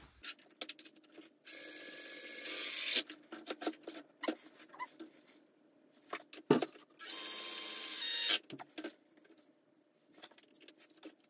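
Cordless drill driving small screws into a plastic hinge: two runs of about a second and a half each, several seconds apart, with the motor whine stepping up near the end of the first. Light clicks and handling of small parts fill the gaps.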